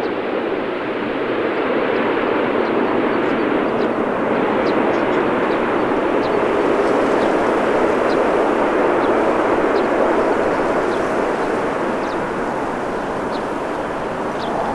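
Jet airliner passing, its engine noise a steady loud rush that swells a little through the middle and eases slightly near the end.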